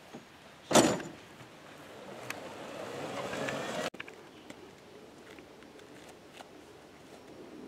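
A single sharp crack about a second in, then a rushing noise that swells for a couple of seconds and cuts off abruptly.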